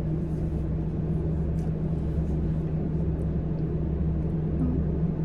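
Steady low hum of a vehicle's engine idling, heard from inside the cabin, with a few faint light clicks.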